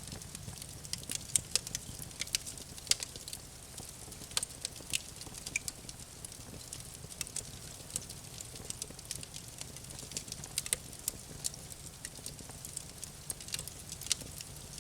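Campfire burning: wood crackling and popping in sharp, irregular snaps over a low, steady rumble of the flames.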